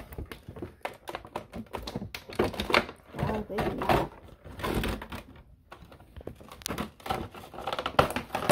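Quick, irregular clicks and taps of small toy accessories, toy coins among them, being handled and set down on a table, with some brief low speech.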